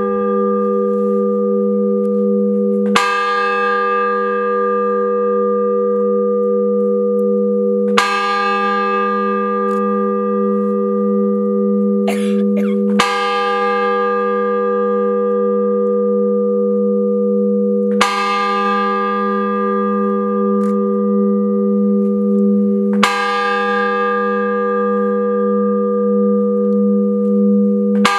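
A single large bell tolled slowly, six strokes about five seconds apart, each ringing on with a long humming decay into the next: a funeral knell.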